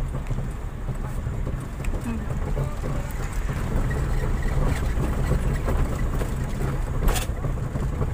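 Vehicle engine running steadily as it drives along a dirt road, heard from inside the cab, with one sharp knock or rattle about seven seconds in.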